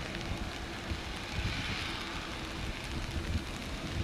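Wind gusting on the microphone over the hiss of rain, with a faint steady hum that comes and goes.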